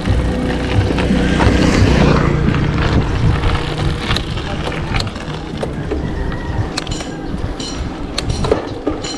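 Riding a bicycle: wind buffeting the microphone over tyre and road noise, with scattered clicks and a few short, high-pitched squeaks near the end.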